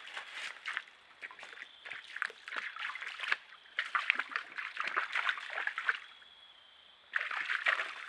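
Whitetail bucks scuffling in dry leaf litter: three bursts of dense crackling and rustling, with short lulls between them.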